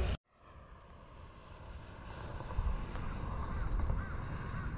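A car passing on the highway: tyre and engine noise that swells over the first few seconds and then holds steady. Wind rumbles on the microphone throughout.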